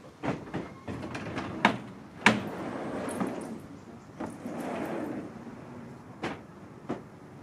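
Wooden sliding storm shutters (amado) being run along their wooden track. Stretches of rumbling slide are broken by sharp wooden knocks as the panels bang against each other and the frame, the loudest about two seconds in.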